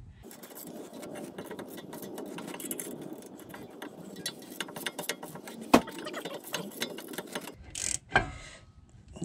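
A long run of rapid small mechanical clicks from hand-tool work on the rear brakes. A sharp metallic knock comes about six seconds in, and a heavier clunk near the end.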